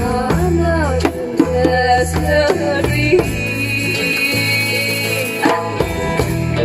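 Djembe played with bare hands, beating along to a recorded desert blues track with deep held bass notes and a melodic line that bends in pitch.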